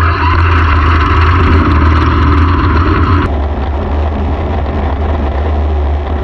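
Dirt-track race car engine idling with a steady low rumble. A hiss over it cuts off abruptly about three seconds in.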